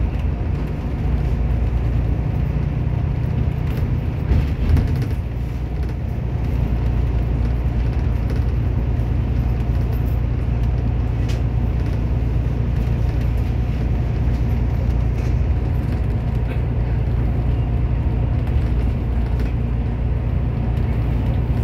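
Steady low rumble of a bus's engine and tyres heard from inside the cabin while it cruises along an expressway. There is a brief bump about four and a half seconds in.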